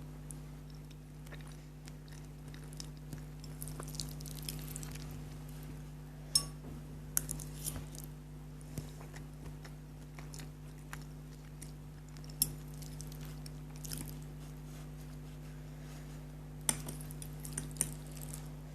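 Close-miked chewing of spicy sour noodles, soft and wet and irregular, with a few sharp clicks scattered through.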